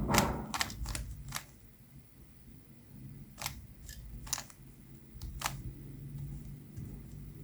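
Plastic Rubik's Cube layers being twisted, giving sharp clicks: four in quick succession in the first second and a half, then three more about a second apart. A faint low hum runs underneath.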